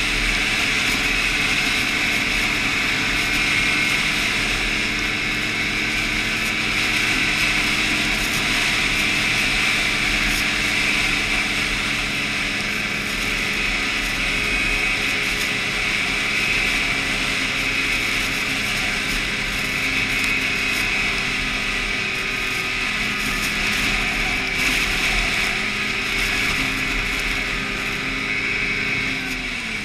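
Snowmobile engine running at a steady speed with a high whine. Its pitch falls at the very end as it slows down.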